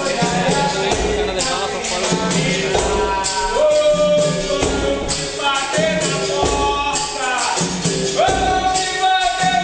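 Capoeira roda music: voices singing a melody over the jingle of a pandeiro and regular low drum beats, with a long held note near the middle and another near the end.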